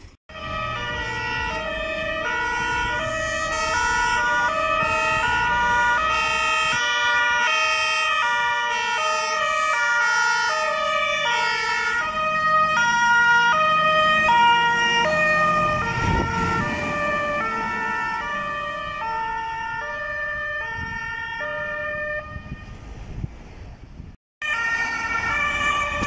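German two-tone emergency sirens (Martinshorn) alternating high and low, several sounding at once and out of step with each other. A vehicle passes close about sixteen seconds in. The sound cuts out briefly near the end, then the sirens return.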